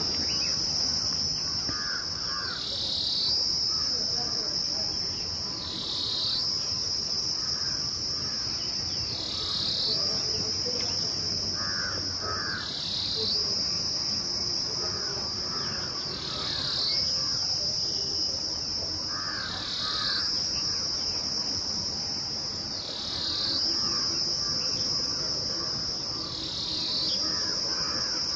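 Insect chorus: a steady, high-pitched buzzing that briefly drops in pitch about every three and a half seconds, with scattered short bird chirps.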